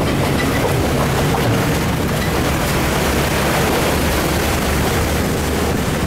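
Amphibious tour bus's engine running steadily as it drives up the ramp out of the river, mixed with a steady rushing noise of water and wind.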